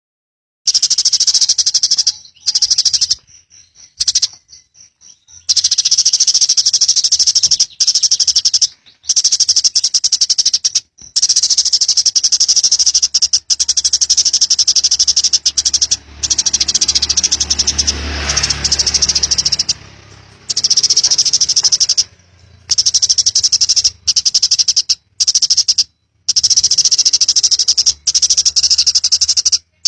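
Eurasian tree sparrow chattering: a fast, unbroken stream of high chirps in long runs that stop and restart abruptly, with a brief low rumble midway.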